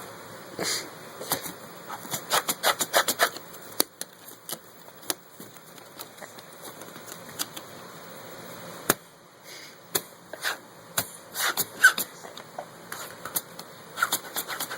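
Latex condom being handled and rubbed, giving irregular clicks and short rubbing sounds in clusters, with a brief squeak near the end.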